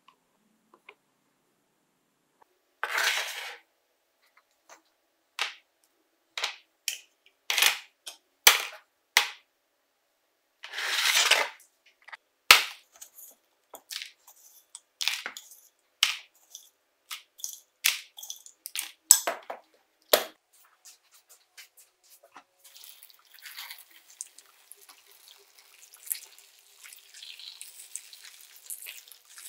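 Hard plastic tool housings and parts set down one by one in a plastic tray, a string of separate clicks and clacks with two short rustling bursts among them. Near the end a faint hiss of water pouring in.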